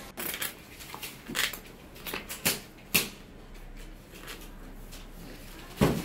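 Hands handling and pressing the parts of a RadioLink A560 model airplane as a glued board piece is fitted into the airframe: scattered rustles with sharp clicks and taps, the loudest near the end.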